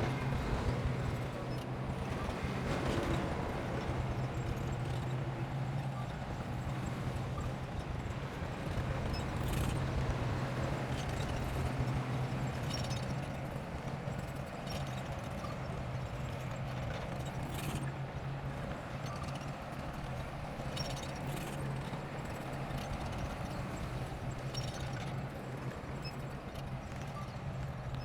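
Bulldozer's diesel engine running steadily with a low hum, and scattered sharp metallic clanks every few seconds.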